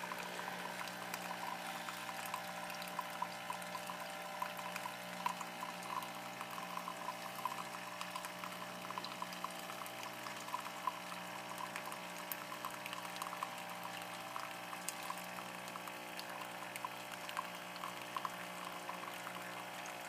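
Tassimo T55 pod coffee machine brewing: its pump hums steadily and relatively quietly while a thin stream of coffee pours into a glass mug, with small splashing ticks throughout.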